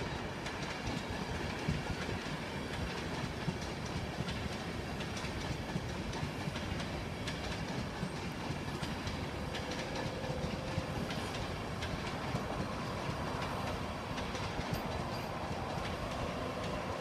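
An InterCity 225 train of Mark 4 coaches rolling past into the station, its wheels clicking steadily over rail joints and points with a continuous rumble. A faint steady whine comes in over the last few seconds.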